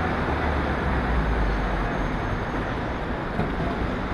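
City street traffic: a steady wash of road noise with a deep engine rumble that swells about half a second in and eases off by the middle.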